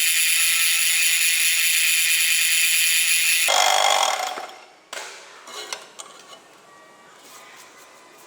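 Electric power tool working steel, a loud, steady high-pitched whine that cuts and winds down about three and a half seconds in, followed by light clicks and knocks of metal parts being handled.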